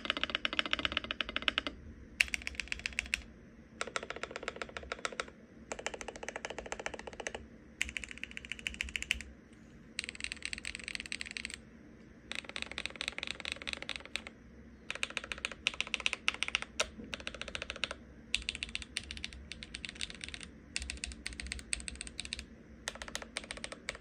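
Typing on an upgraded MonsGeek M1 gasket-mount mechanical keyboard: quick runs of keystroke clicks lasting a second or two, separated by short pauses.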